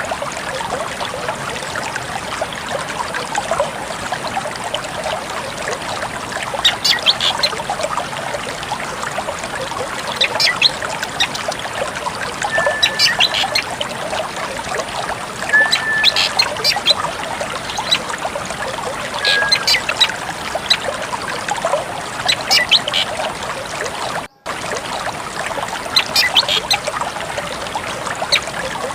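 Drongo calls repeating every few seconds, short clusters of high sharp notes with an occasional brief whistle, over a steady trickle of running water. The sound cuts out for a moment about three-quarters of the way through.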